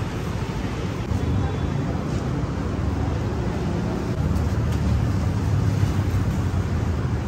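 Roadside street ambience: a steady low rumble of road traffic passing along the street.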